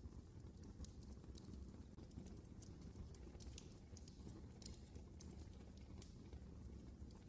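Wood fire crackling in a fireplace: faint, irregular sharp pops over a low steady rumble.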